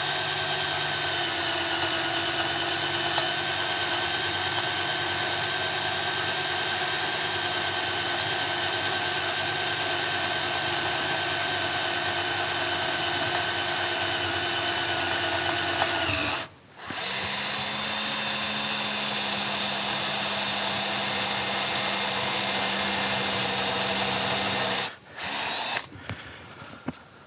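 Electric drill running steadily as it bores into a broken stud in a cast final drive housing. It stops briefly about 16 seconds in, runs again at a slightly different pitch, then stops, with a short last burst near the end.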